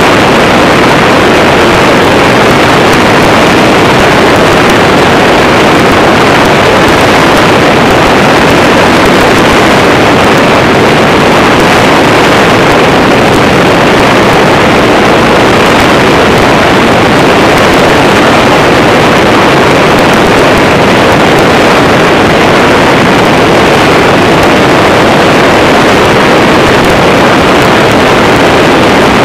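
Microlight trike's engine and propeller running steadily in flight, very loud and unchanging, with air rushing over the microphone from the open cockpit.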